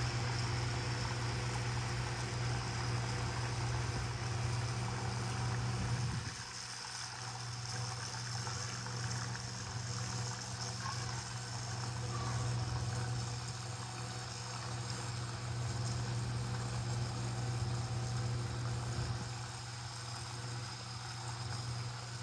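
Two small 6-volt DC motors of a model boat whirring steadily as they drive its propellers, one turning in the water and one in the air. The hum drops a little about six seconds in.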